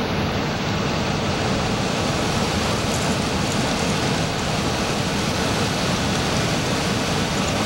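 Steady road and engine noise inside the cabin of a moving vehicle, a constant rushing hum.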